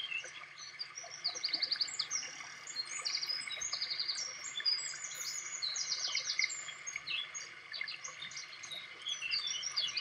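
Several small birds chirping and trilling at once, a dense chorus of short, varied high calls and quick trills, over a faint steady whine.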